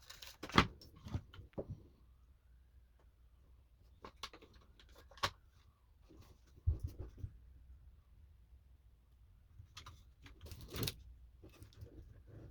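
Scattered light clicks and small knocks of handling: a battery being fitted into the plastic quartz clock movement, with one duller thump about two-thirds of the way through.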